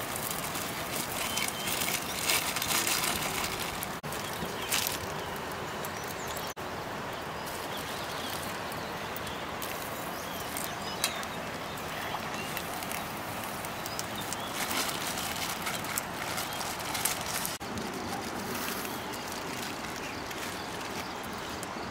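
Steady outdoor background noise with scattered rustles and light clicks of things being handled.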